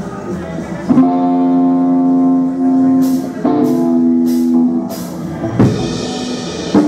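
Music: a few long held chords, with short cymbal-like strokes in the middle and a sharp hit near the end.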